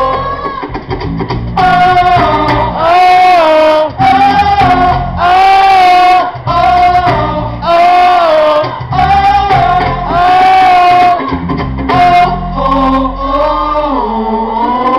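Live band performance: held, sung phrases about a second long over strummed acoustic guitar, electric guitar and percussion, heard loud through the stage PA. The singing is strongest through the middle and drops back to a softer instrumental passage near the end.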